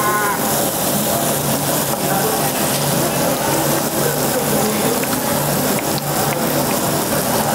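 Pork sizzling on a Korean barbecue tabletop grill: a steady hiss.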